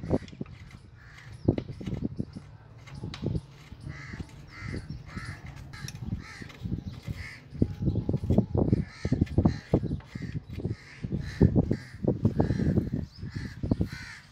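A metal wrench knocking and scraping on a mounting bolt at the cast-iron base of an old air compressor, the knocks uneven and loudest in the second half. A bird calls over and over in the background.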